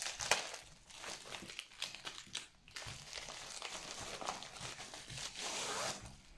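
Crinkling and rustling of packaging as a white plastic mailing pouch is opened and a paper-wrapped rolled canvas is pulled out of it. The crinkling is irregular, and a little louder just before the end.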